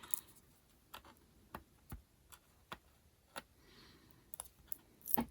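Fingernail picking at the corner of the protective film on a new metal nail stamping plate, trying to lift it: faint, irregular separate clicks, with a louder cluster near the end.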